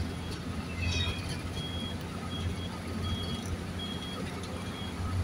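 Steady low engine and road rumble inside a moving vehicle's cabin. Over it, a faint short high beep repeats every second or so.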